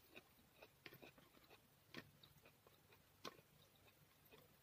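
Faint, scattered wet clicks of eating by hand, with a stronger click about two seconds in and another a little after three seconds.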